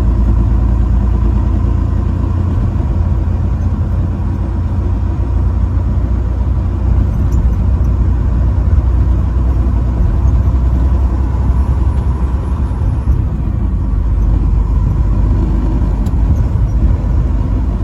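Motor vehicle running with a steady low rumble.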